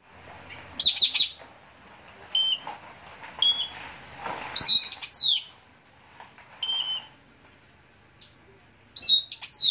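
Songbird calling loudly: clusters of rapid, high falling chirps about a second in, around the middle and near the end, with shorter clipped call notes between them, the sound of the puling bird being lured.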